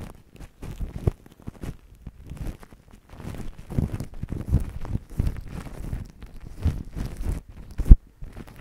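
Fingers pinching and dabbing white foam on plastic cling film wrapped over a microphone: close, irregular crinkling and squishing with soft thumps. One sharp thump comes near the end.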